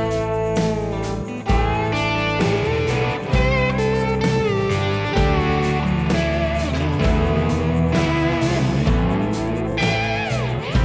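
Instrumental break of a song: slide guitar bending and gliding between notes over a steady band backing.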